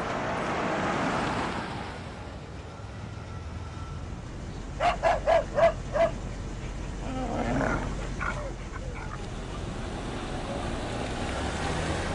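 A car pulls up, then a small dog barks five quick, sharp times, followed by a few softer yips, over the steady low hum of an idling engine.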